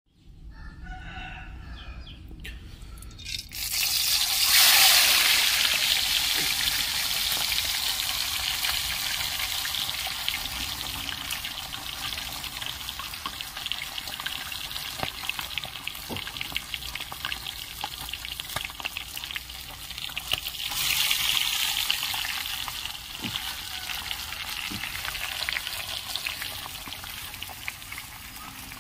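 Marinated fish deep-frying in hot oil in a kadhai: a loud sizzle starts about three and a half seconds in, settles into steady frying with small pops, and flares up again about 21 seconds in.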